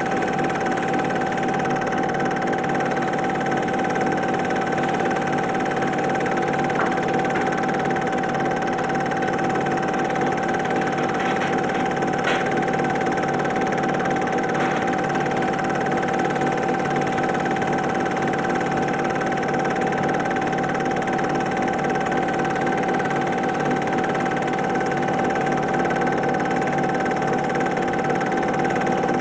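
Super 8 film projector running: a steady mechanical whirr with a constant hum, and a few faint clicks about halfway through.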